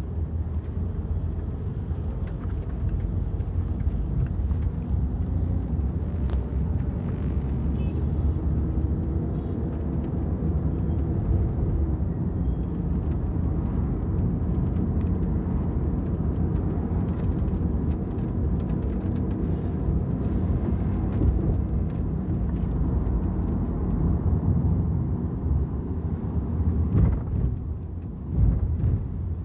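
A car driving on city roads, with a steady low rumble of tyre and engine noise. There is a short louder bump near the end.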